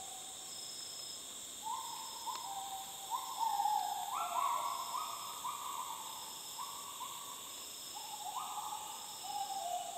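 Bornean gibbons calling: a run of clear hoots, each about half a second long, stepping up and down in pitch and overlapping one another. They start a couple of seconds in and are loudest in the middle.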